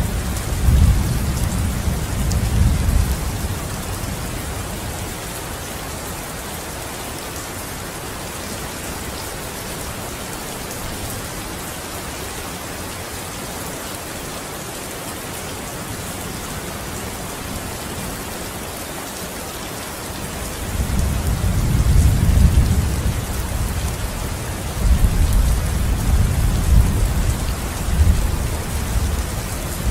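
Steady rain falling on a window, with rolling thunder rumbling low; the rumble fades out within the first few seconds and swells back in waves about two-thirds of the way through.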